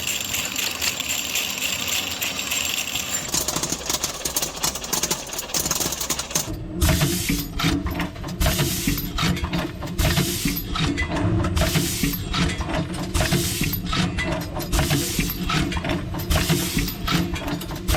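Ammunition production machinery running, with dense rapid metallic clicking. About seven seconds in, it settles into a regular working cycle of roughly one stroke a second.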